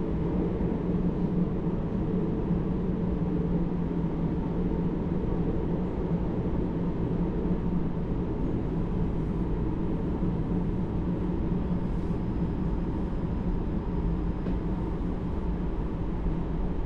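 Cabin running noise of a JR Hokkaido Hakodate Liner electric train: a steady low rumble of wheels on rail with a constant tone, and a faint high whine for a few seconds near the end as the train runs into a station.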